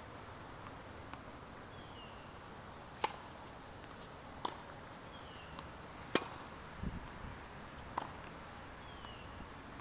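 Tennis rally: a ball struck back and forth by rackets, four sharp pops about one and a half seconds apart, every other one louder. A bird's short falling chirp comes three times, faintly.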